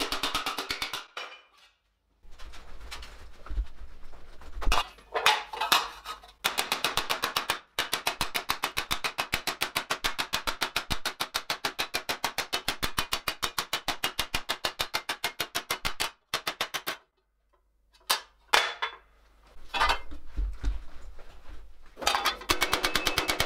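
Rapid, even hammer blows on thin stainless steel sheet laid over a steel forming block, shaping a breastplate plate. The hammering stops twice for a few seconds of scattered knocks and clanks, then starts again.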